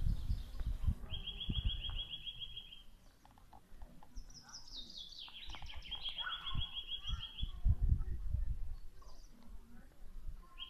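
A small songbird singing: a rapid, even high trill about a second in, then a run of notes falling in pitch that settles into the same trill near the middle. Low muffled thumps underneath.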